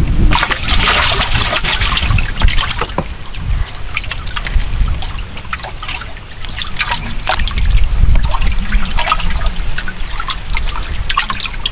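Water splashing and trickling, with a louder rush of splashing in the first few seconds and scattered clicks and knocks throughout.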